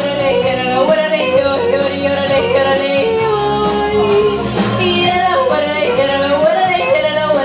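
A young female singer sings a winding, ornamented melody of a Romanian song into a microphone over backing music, holding one long note about three seconds in.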